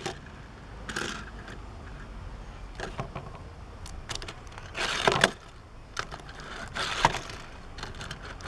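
Handling noises of die-cast toy cars on an orange plastic track laid over a wooden table: a few short scrapes and clicks, the loudest about halfway through.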